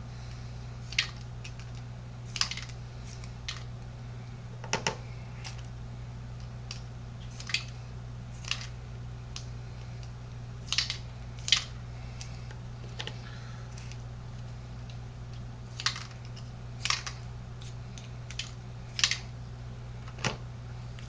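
Plastic shotgun wads (power pistons) being pushed back into plastic shotgun hulls, giving sharp, irregular clicks and taps about once a second, some in quick pairs, over a steady low hum.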